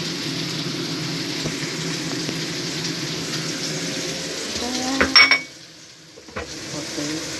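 Food frying in a pan, a steady sizzle. About five seconds in there is a loud metallic clatter, and the sizzle then cuts out for about a second before it returns.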